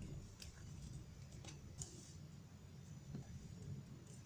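Faint, scattered clicks and light rustles of plastic-sleeved cards being picked up and moved on a table.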